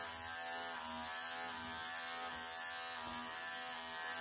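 Wahl professional electric pet clippers running steadily as the blade works under tight mats in a long-haired cat's coat, their hum dipping slightly in pitch now and then.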